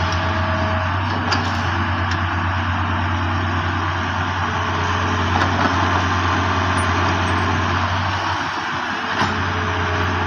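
Heavy machinery's diesel engine running steadily, with a low hum and a few light clicks and knocks; the hum eases briefly about eight seconds in.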